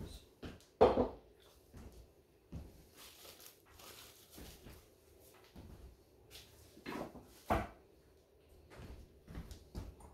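Kitchenware being handled on a counter: a few separate knocks and clunks, the loudest about a second in and two more close together around seven seconds, with lighter taps between.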